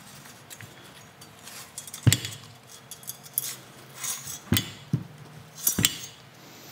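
Throttle-by-wire wiring harness being pulled out through a motorcycle handlebar: wires and plug terminals rattling and clinking against the metal bar, with three sharper knocks about two, four and a half and six seconds in.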